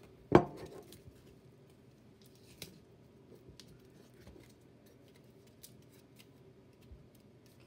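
A foil-wrapped glass jar knocks once on a desk about half a second in, followed by faint scattered crinkles and clicks of aluminium foil and cardboard being pressed and handled.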